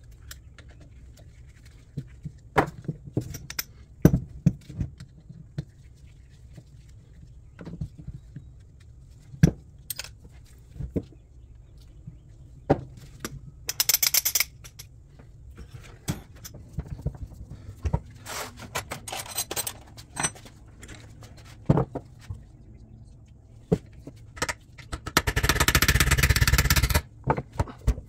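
Workshop handling sounds: scattered clicks and knocks of tools and parts on a bench, with short rattling bursts about 14 and 19 seconds in. Near the end a loud, steady, noisy sound lasts about two seconds and then cuts off.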